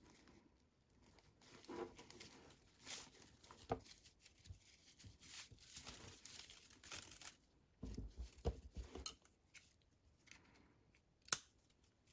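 Faint rustling and scratching of raffia yarn as a tapestry needle draws the yarn tail through the crocheted stitches and the stiff work is handled. A single sharp click comes near the end.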